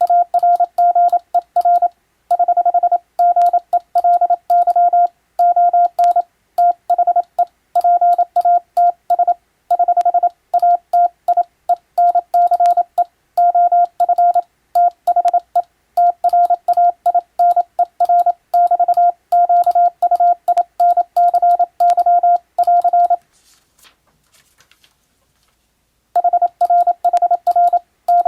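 Morse code (CW) sent as a single steady-pitched tone keyed rapidly on and off in dots and dashes. The sending pauses for about three seconds near the end, then starts again.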